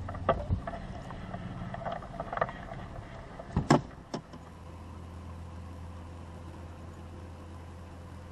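Sharp knocks and thumps on a bass boat as a hooked bass is swung aboard, the loudest a pair about three and a half seconds in. A low steady hum runs underneath. After that, only the steady hum and a faint steady whine remain.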